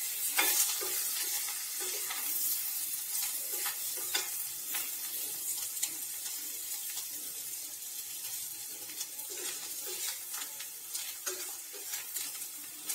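Besan-coated okra frying in a stainless steel kadai: a steady sizzle, with a spatula stirring and scraping the pan in irregular short scrapes and clicks. The sizzle grows slightly quieter over the stretch.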